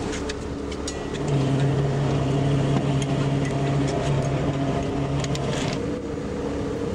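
Boat engine running with a steady low hum that grows louder about a second in and eases back near the end, with a few light knocks on deck.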